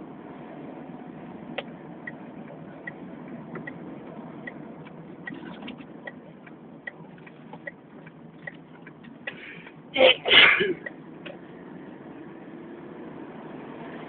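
A person sneezing about ten seconds in: a short sharp burst and at once a longer, louder one. Before and after there is a steady background hiss with faint small ticks.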